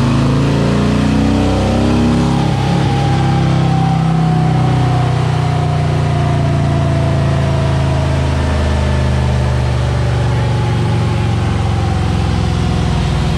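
Harley-Davidson Milwaukee-Eight 114 V-twin, fitted with a Stage 2 cam and a Stage 1 Heavy Breather intake, running loud under throttle on a chassis dynamometer during a power run. The revs climb over the first couple of seconds, then the engine holds steady at high load.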